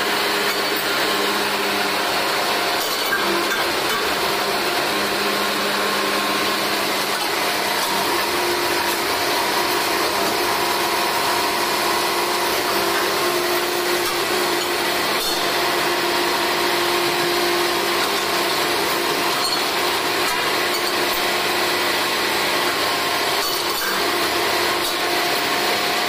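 Truck-mounted borewell drilling rig running steadily: an even mechanical noise with several steady hums from its engine and drilling gear.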